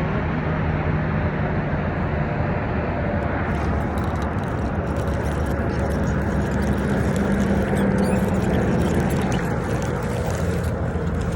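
Engine running steadily: a low hum under a rush of noise, with a fine crackle coming in about three and a half seconds in.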